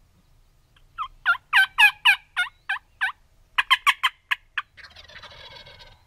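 Wild turkey calls: a loud series of about eight evenly spaced yelping notes, then a quicker run of six or seven sharper notes. Near the end comes a longer, quieter rattling gobble from a tom.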